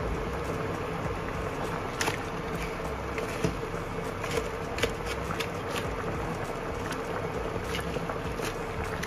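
Water boiling in a pan full of eggshells, bubbling steadily, with a wooden spatula clicking against the shells and pan several times. A faint steady hum from the induction cooktop sits underneath.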